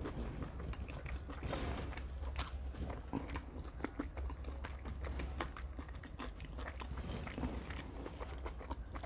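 A person chewing a mouthful of stir-fried yakisoba noodles and cabbage, with many small crunches and mouth clicks.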